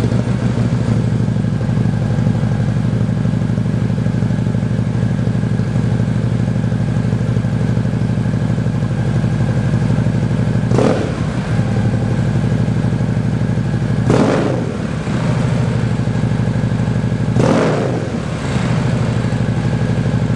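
Harley-Davidson Street Glide V-twin idling through Fuel Moto Jackpot 4-inch slash-up slip-on mufflers on the stock headpipe, a stage 1 build. Three short throttle blips come about ten seconds in, then roughly every three seconds.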